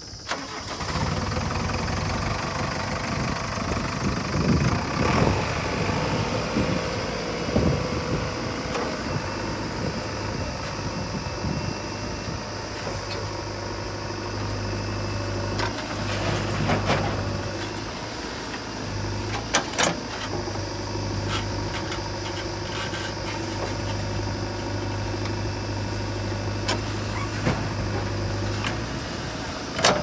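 JCB 3DX backhoe loader's diesel engine running as the backhoe digs and loads soil, its pitch rising and falling a few seconds in as it revs under the hydraulic load. A few sharp knocks sound in the middle.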